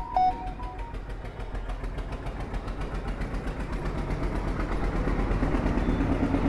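An engine running steadily with a rapid, even pulse, slowly growing louder. A few fading musical notes sound in the first second.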